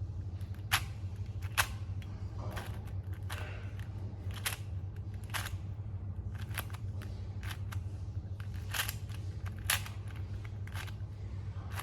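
A 4x4 Rubik's cube being turned by hand through its PLL parity algorithm, the plastic layers clicking roughly once a second, over a low steady hum.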